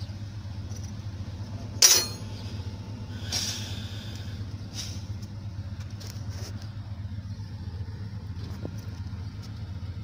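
Komatsu GD705A motor grader's diesel engine running steadily, with one sharp loud clack about two seconds in and a short hiss about a second later.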